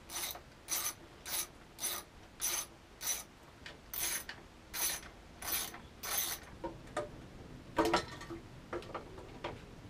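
A ratchet wrench is swung back and forth to undo the bolts holding an outboard motor's fuel tank, giving a short rasp of pawl clicks on each back-swing, about two a second, for roughly six seconds. After that come a few knocks and a louder clunk near eight seconds as the tank is worked loose and lifted.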